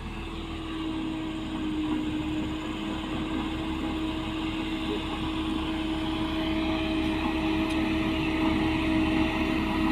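Construction machine's engine running steadily with a held drone, growing gradually louder.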